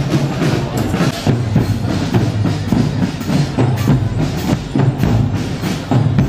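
Marching drum corps playing a steady percussion cadence: Premier marching bass drums, multi-tenor drums and cymbals struck in a fast, dense rhythm of sharp stick strokes.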